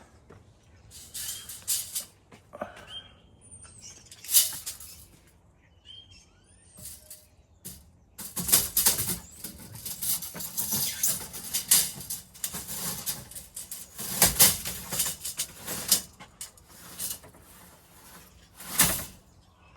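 Rustling and clattering of materials being handled, in irregular bursts that come thicker in the second half, with a few short bird chirps early on.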